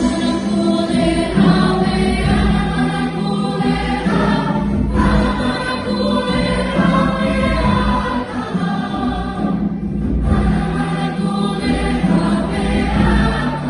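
Choir singing sustained chords over an orchestral accompaniment with a steady low bass.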